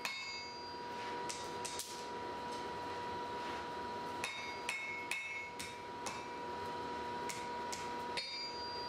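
Blacksmith's hand hammer striking red-hot steel on an anvil, about a dozen blows in small irregular clusters, each with a short metallic ring. The hammer is held half on, half off the anvil's edge, setting down the end of a hatchet cheek.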